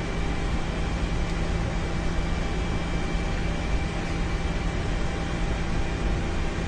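Steady flight-deck noise of a Boeing 747-200 taxiing with its engines at idle: an even hiss with a low hum and a few faint steady tones, unchanging throughout.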